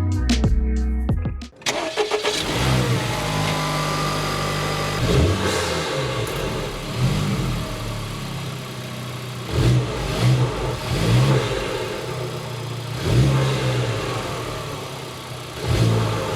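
Background music that stops abruptly after about a second and a half, then a car engine running and revving up and down several times.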